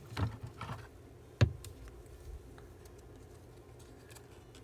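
Paper craft pieces being handled and laid on a desk: soft rustles and taps, one sharp tap about a second and a half in, then a few faint ticks.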